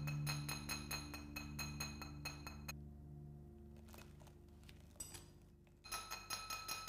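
A small hammer tapping quickly and evenly on the silver-wire inlay of a Yixing clay teapot, about six light, ringing clinks a second. One run lasts nearly three seconds and a second run starts near the end, over soft background music.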